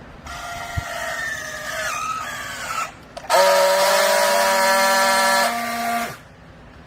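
Hydraulic baler's pump and press whining under load. The whine wavers in pitch for a few seconds, then after a short break becomes a louder, steady pitched drone that holds for nearly three seconds and cuts off.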